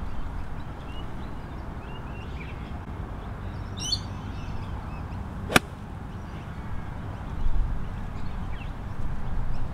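A golf club striking a ball: one sharp, clean crack about halfway through, with steady wind rumble on the microphone and a few brief bird chirps shortly before the strike.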